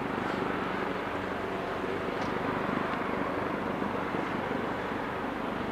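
Boeing 777 freighter's twin GE90 turbofans at takeoff thrust as the jet rotates and lifts off: a steady, even rushing jet noise.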